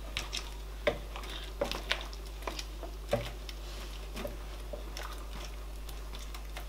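Wooden spoon stirring a pot of pepper soup with chunks of meat and plantain: soft stirring broken by irregular light knocks and clicks, roughly one or two a second, over a steady low hum.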